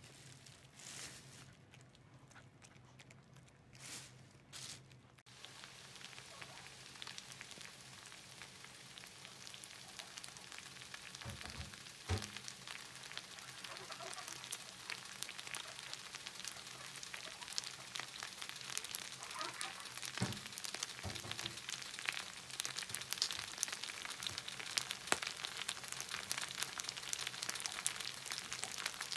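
Beef fried rice sizzling on an electric hot plate, a steady hiss full of fine crackles as the rice on the bottom crisps into a crust. It starts about five seconds in and slowly grows louder, with a few dull knocks along the way.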